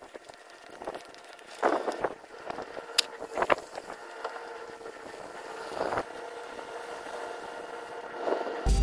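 A steady motor hum with several faint steady tones runs throughout. Over it come a few short scuffs and rustles: footsteps on grass and dirt, then dry cardboard and sticks being handled near the end.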